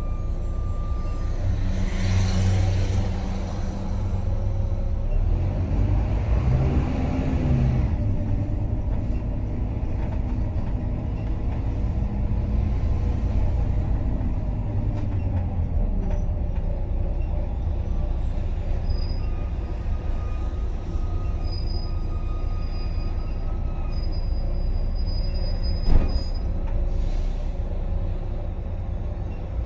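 Volvo B9TL double-decker bus heard from inside the top deck while on the move: its six-cylinder diesel engine and drivetrain running steadily. The engine note rises and falls about six to eight seconds in. There is a brief hiss about two seconds in, and a single sharp knock near the end.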